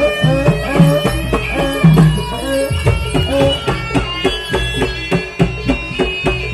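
Javanese jaranan (kuda lumping) music: kendang hand drums beating a brisk rhythm under a reedy wind melody.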